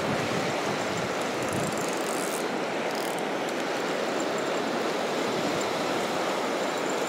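Steady hiss of small surf waves washing up a sandy beach, with wind on the microphone, while a spinning reel is cranked to take up line after a cast.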